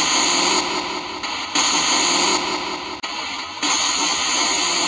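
FCD spirit box sweeping through radio stations, giving a loud, choppy radio static that changes abruptly about every half second to a second.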